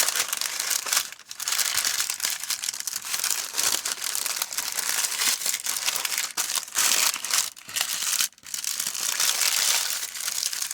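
A sandwich being wrapped by hand: loud, continuous crinkling and crumpling of the wrapping, with two brief pauses.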